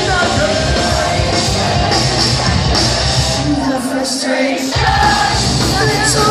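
Live rock band playing loudly with a singer, recorded on a phone from the crowd. The drums and bass drop out for about a second past the middle, leaving a held note, then the full band comes back in.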